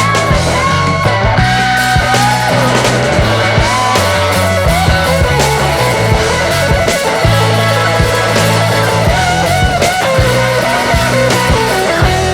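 Rock music with a bending lead guitar melody over a steady bass line and a drum beat.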